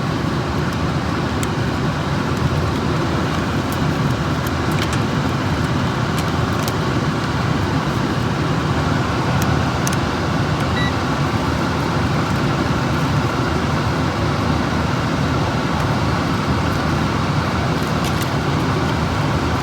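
Air handler blower motor and fan running steadily, a constant rush of air, now turning in the corrected direction after its rotation was reversed. A few faint clicks and one short faint beep about eleven seconds in.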